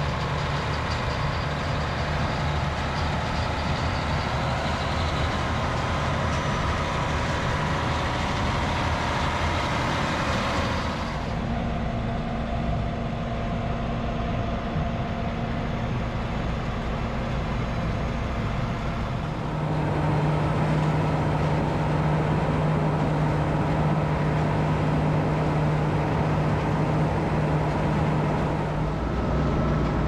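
Diesel engines of sugarbeet harvest machinery, a tracked John Deere tractor and beet trucks, running steadily with mechanical noise. The engine tone and noise change abruptly twice, about a third of the way in and again near two-thirds, where a steady low hum comes in.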